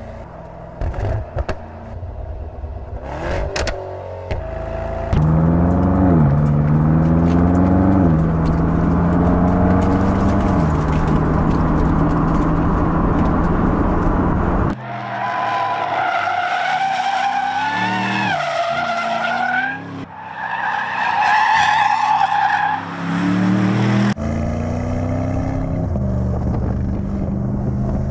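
High-performance car engines revving and accelerating, pitch climbing and dropping through several upshifts. Midway, a high wavering tyre squeal takes over for several seconds before the engine sound returns.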